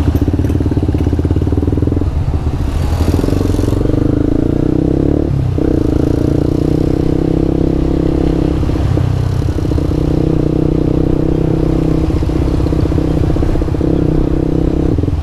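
Yamaha R15 v2's single-cylinder engine running at steady revs, its pitch holding nearly level throughout. There is a brief hiss about three seconds in.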